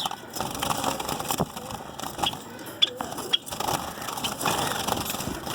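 Zebra finches and white finches chattering with scattered short chirps over steady rustling and clicking, with one sharp click a little under halfway through.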